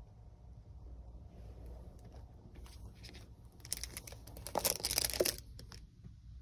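Plastic packaging rustling as items are handled by hand, in a crackly burst of about two seconds a little past halfway through.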